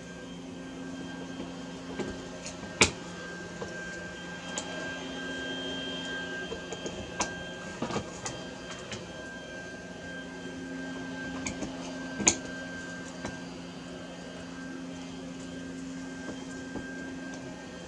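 Scattered sharp clicks and taps of plastic cable connectors and wires being handled and latched into a breakout board, the loudest about three seconds in and about twelve seconds in, over a steady background hum.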